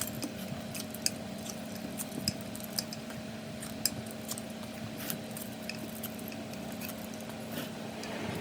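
Scattered light metal clicks and clinks of small parts and tools being handled, over a steady hum.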